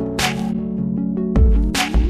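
Electronic background music with a steady beat: deep kick-drum hits and sharp snare-like hits over held synth notes.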